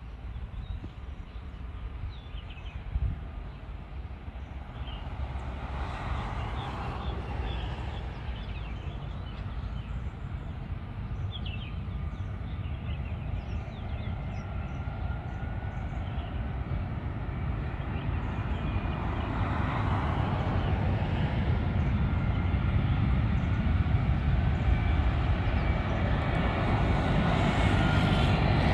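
Jet engines of an approaching Boeing 777 airliner on final approach, a low rumble growing steadily louder as it nears, with the engines' whine coming in during the second half. A few bird chirps sound in the first half.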